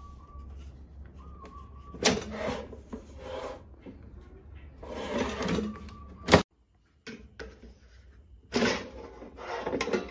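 Basket drawer of a Philips HD9255 air fryer being pulled open and handled: three spells of rasping plastic scraping with a sharp click in the middle, over a low steady hum.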